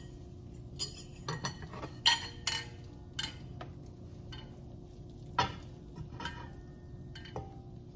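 Rice being dished from a pot into a ceramic bowl: a silicone serving spoon scraping and tapping the pot, and a fork clinking against the bowl, in scattered knocks and clinks that are loudest about two seconds in and again past five seconds. A steady low hum runs underneath.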